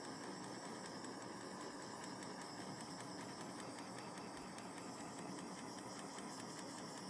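Small handheld torch burning with a steady hiss as its flame is played over wood treated with scorch-marker fluid, heating it so the design scorches brown.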